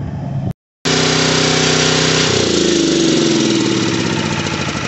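Honda GX270 single-cylinder engine on a Baldor PC50H generator running steadily after a carburetor rebuild, which the owner says sounds amazingly well for an engine that was seized hours earlier. The sound drops out briefly about half a second in. Its pitch sags a little about halfway through.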